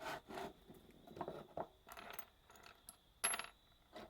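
Scattered clicks and light clatter of circuit boards and small hard parts being handled and set down on a work table, the loudest knock about three seconds in with a brief high ring.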